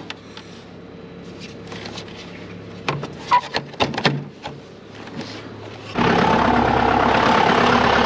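A few clunks and knocks, then about six seconds in the John Deere loader tractor's diesel engine starts on its new battery and runs steadily.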